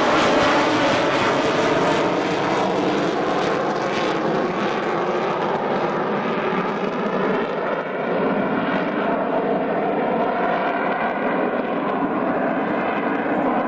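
Handley Page Victor K.2 tanker's four Rolls-Royce Conway jet engines running steadily as the aircraft climbs away, with wavering tones that slowly slide downward and a hissing top end that fades as it recedes.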